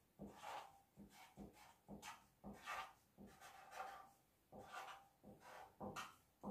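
Faint marker pen scratching and squeaking on paper in short strokes as letters are written.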